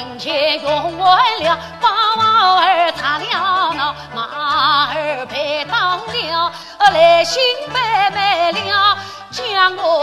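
Yue opera aria: a solo voice in the young-scholar role sings with wide vibrato over an instrumental accompaniment whose low notes fall in a steady, even beat.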